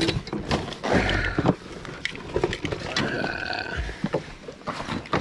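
Knocks and clicks of fishing gear being handled on a boat deck, as a landing net holding a gag grouper is moved and a plastic fish measuring board is picked up. Two brief pitched, voice-like sounds, about a second in and about three seconds in.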